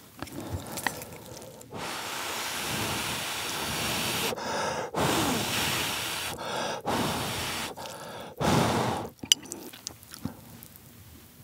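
Someone blowing hard and steadily over a bowl of hot ramen noodles to cool them, in four long breaths with short pauses between. A few faint clicks of chopsticks and chewing follow near the end.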